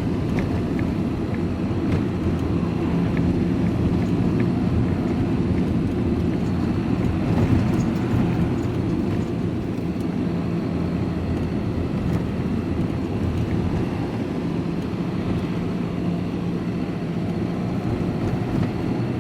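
Van engine and road noise heard from inside the cab while driving, a steady low drone.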